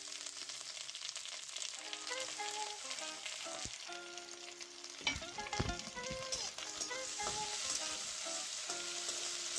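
Tomato, onion and garlic sizzling in hot oil in a steel kadhai. From about halfway through, a steel spatula scrapes and knocks against the pan as it stirs.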